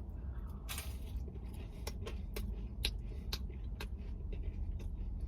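Scattered small clicks and a brief rustle about a second in as a sauce cup is handled and a French fry dipped and eaten, over a steady low hum.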